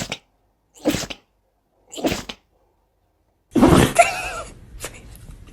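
Dog sneezing in quick, short sneezes about a second apart, three in a row, then a louder, longer burst about three and a half seconds in.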